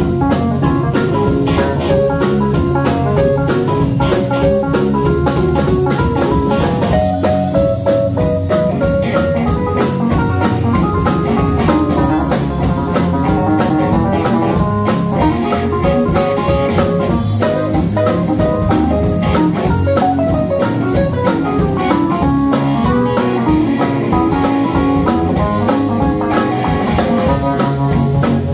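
Live band playing an amplified instrumental passage: keyboard played on a red Nord keyboard over a drum kit and electric guitar, many notes moving over a steady beat.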